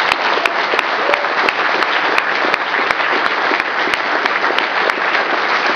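Audience applauding in a large hall, with one pair of hands clapping close by about three times a second.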